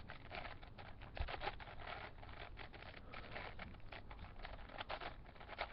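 Plastic 4x4 Rubik's Cube being turned by hand: faint, irregular clicking and scraping as its layers are twisted through an algorithm.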